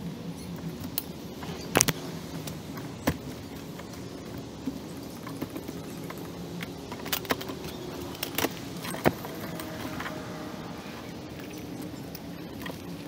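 Camouflage nylon pouches and gear being handled on a table: a handful of sharp clicks and clacks from their fittings, over a steady low hum.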